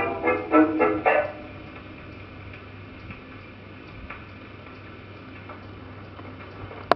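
Acoustic wind-up phonograph playing a 1920s 78 rpm dance-band record: the last notes of the band end about a second in. Then the needle runs on in the groove with a steady surface hiss and a few faint ticks, and a single sharp click comes at the very end.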